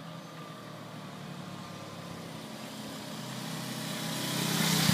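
Sport motorcycle riding toward the listener at a steady engine note, getting louder through the second half and passing close by at the end.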